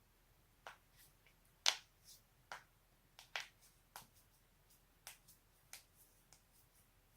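Joints cracking: about a dozen short, sharp pops and clicks at irregular intervals, the loudest about a second and a half in.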